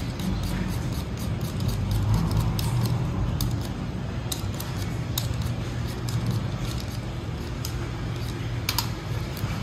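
Hand-held vegetable peeler scraping the skin off potatoes: a run of short, irregular scraping clicks, over a steady low hum.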